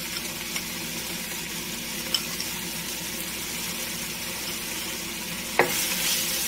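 Onions, garlic, spinach and crumbled cheese sizzling steadily in a hot frying pan. Near the end a wooden spoon knocks the pan and starts stirring, and the sizzle gets louder and scrapier.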